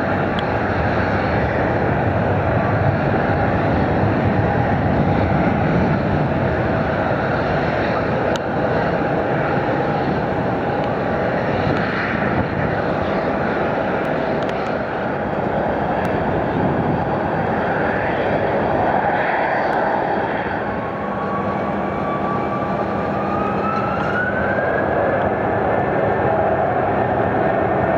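Jet airliner engines running at the airport, a steady loud rush of noise. About twenty seconds in, a jet engine's whine rises in pitch over a few seconds and then holds steady.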